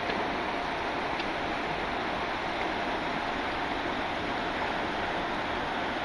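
Flowing river water: a steady, even rushing hiss.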